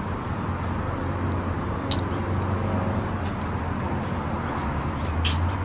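Steady low hum and background noise, with a few light clicks of Lego pieces being handled; the sharpest click comes about two seconds in.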